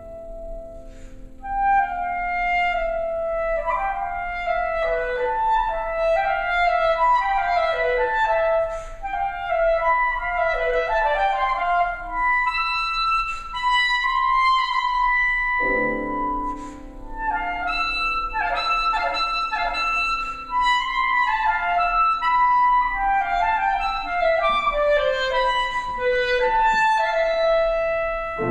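Clarinet playing fast, continuous runs of notes over held piano chords, with a new low piano chord struck about halfway through.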